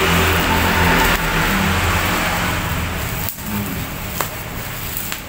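Plastic bubble wrap crinkling and rustling as hands unwrap a small part, with a few sharp crackles near the end. Under it runs a steady low drone with a hiss, the loudest sound, which fades out about three seconds in.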